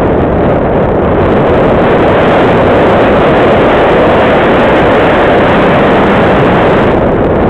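Loud, steady wind rush on the microphone of a camera riding on a ParkZone Radian Pro RC glider in flight.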